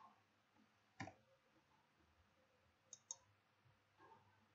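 Computer mouse clicks against near silence: a single click about a second in, then two quick clicks about three seconds in.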